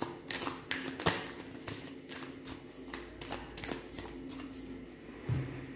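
A deck of tarot cards being shuffled by hand: a run of quick, irregular card flicks and slaps.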